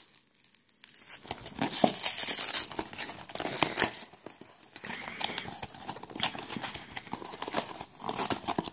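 Glued flap of a small cardboard box being pried open by hand, starting about a second in: a run of crackling, tearing and scraping as the glue lets go and the paper fibres rip.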